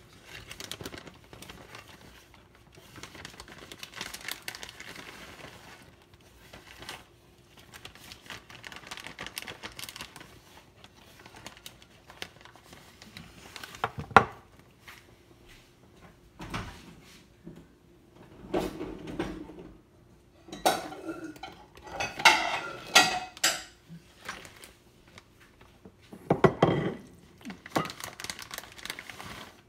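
Kitchen clatter as a meal is cooked and dished up: metal utensils and pans knocking, scraping and clinking on and off, with one sharp knock about halfway through and a run of clinks and clatter about two-thirds of the way in.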